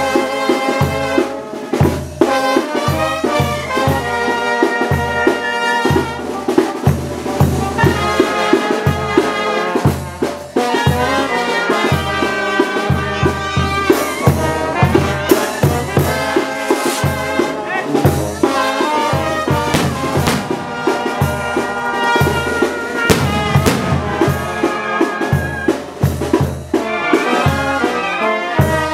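Brass band (banda) playing: trumpets and trombones carry the melody over a steady bass beat about twice a second.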